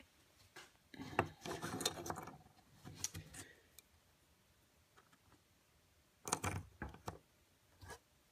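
Small plastic toy-car parts being handled, pressed and clicked together on a wooden tabletop: a cluster of rubbing and clicking about a second in, a few clicks around three seconds, and another burst a little past six seconds.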